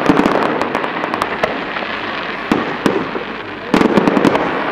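Aerial fireworks bursting: a cluster of sharp bangs and crackling pops at the start, scattered single pops through the middle, and another dense cluster near the end.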